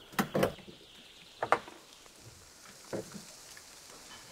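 Hard plastic storage box being opened and rummaged through: short clicks and knocks, two close together at the start, a sharper one about a second and a half in, and two softer ones around three seconds in.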